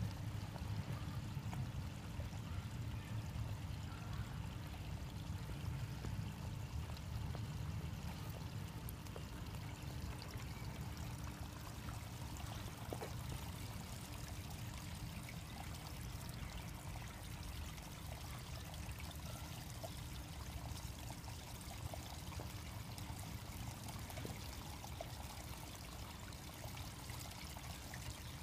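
Steady rushing noise, heaviest in the low end, with a faint steady hum.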